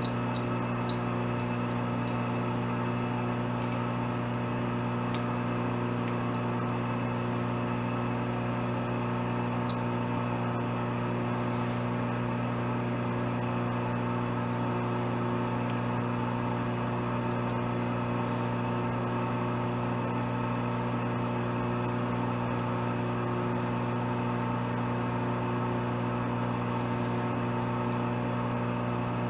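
Steady low machine hum, even and unchanging throughout, with a few faint light metal ticks.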